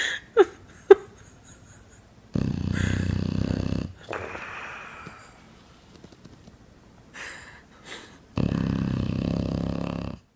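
Loud snoring: two long, heavy snores about six seconds apart, the first followed by a softer breath out. Two short whistles falling in pitch come in the first second.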